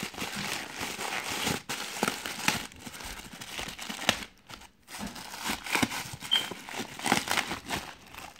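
Crinkly silver plastic packing wrap being crumpled and pulled by hand around a coilover shock in a cardboard box, an irregular run of crackling rustles with a short lull about halfway through.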